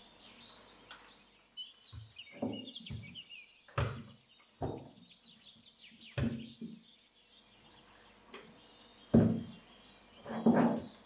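A series of dull thuds and knocks from kitchen work, about eight spread irregularly, the two loudest near the end, with birds chirping faintly in the background.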